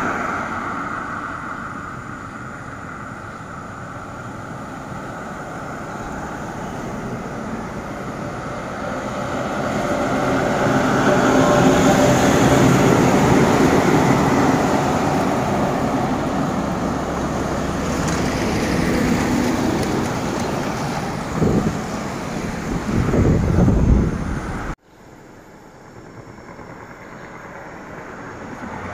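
Heavy truck with a multi-axle trailer passing close by: a steady rumble of diesel engine and many tyres that swells to its loudest about twelve seconds in and then fades, among light passing traffic. Near the end there are a few loud low rumbles, then the sound drops abruptly to quieter road noise.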